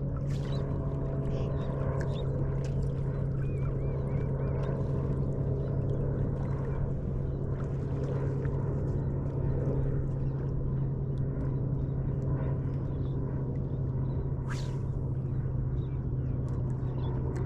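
A boat motor running at a steady, unchanging hum, with scattered light clicks and a sharp swish about three-quarters of the way through.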